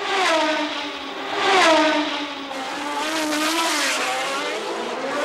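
1970s Formula One race cars' engines at racing speed as cars come through a corner, the engine pitch falling and rising as they brake and accelerate.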